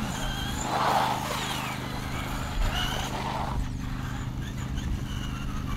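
Traxxas Stampede RC truck driving off on concrete: its electric motor whines, rising and falling in pitch with the throttle, over tyre noise that swells about a second in and again about three seconds in. A steady low hum runs underneath.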